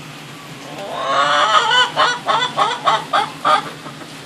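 Domestic hen talking: a drawn-out call rising in pitch about a second in, then a run of about seven short clucking notes, roughly three a second, which stops shortly before the end.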